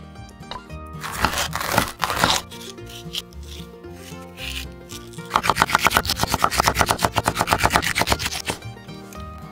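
Kitchen knife slicing green peppers into thin strips on a wooden cutting board: a fast, even run of chops, about eight or nine a second, lasting about three seconds in the second half, over background music. Before that come a couple of short scraping rubs.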